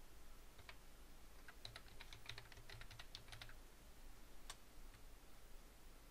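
Faint typing on a computer keyboard: a quick run of a dozen or so keystrokes in the middle, with a few scattered single clicks around it.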